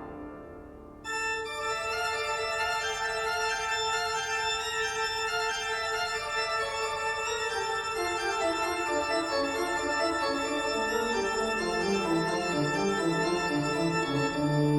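Background music of held, sustained notes, coming in about a second in after a brief fade; in the second half a lower line steps down note by note.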